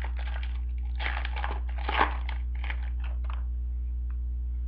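Trading-card pack wrapper being crinkled and torn open by hand: a run of crackly bursts for about three seconds, loudest about two seconds in, then quieting. A steady low electrical hum runs underneath.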